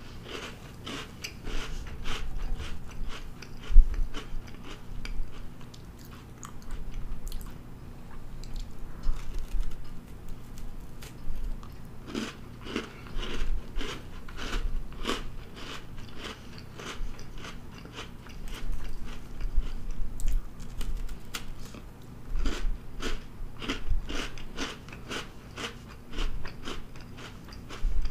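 Close-miked eating of a Pillsbury Cinnamon Toast Crunch cookie: chewing and biting, with crunching and wet mouth clicks coming in bursts and one sharp click about four seconds in.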